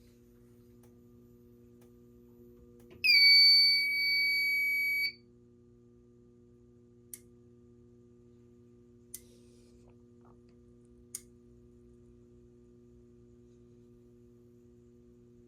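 A fire alarm sounder gives one loud, steady, high-pitched beep for about two seconds. Three faint clicks follow at two-second intervals, over a steady low electrical hum.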